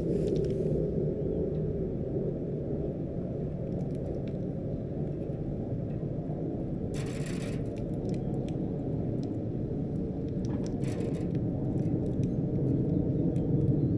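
Wind buffeting the microphone outdoors: a steady low rumble, with two brief rustling noises about seven and eleven seconds in.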